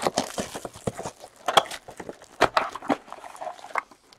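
Hands opening a cardboard trading-card box and pulling the packs out. A quick, irregular run of knocks, taps and rustles as the packs and the box are handled.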